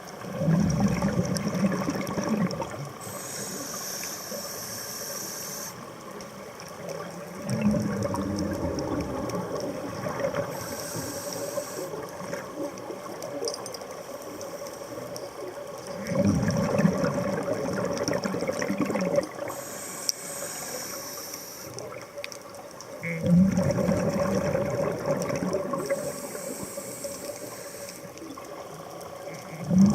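A scuba diver's breathing through a regulator, heard underwater: a rumbling gush of exhaled bubbles about every seven to eight seconds, with a hiss of inhalation between them.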